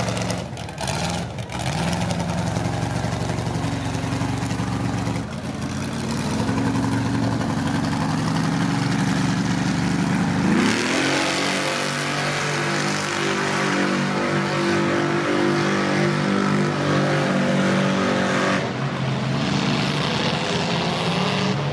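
Lifted mud truck engines running under load through deep mud. About ten seconds in, one revs up hard and holds high revs for several seconds, then drops back near the end.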